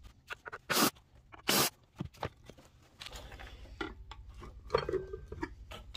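Hands and a screwdriver working on a metal hard-drive casting: two short, loud scraping rasps early on, then scattered clicks and knocks. A low steady hum sits underneath from about three seconds in.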